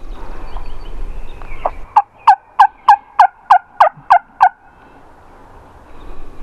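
A run of about nine loud turkey yelps, evenly spaced at about three a second, each note dropping in pitch, starting about two seconds in and ending abruptly.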